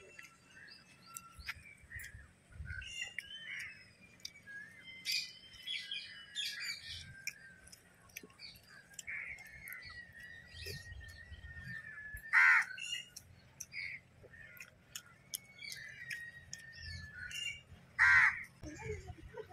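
Crows cawing loudly twice, once past the middle and once near the end, over smaller birds chirping and whistling.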